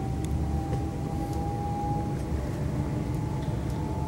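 London Midland Class 350 Desiro electric multiple unit accelerating away from a station, heard from inside the carriage: a steady rumble of wheels on track with a thin whine from the traction motors slowly rising in pitch as the train gathers speed.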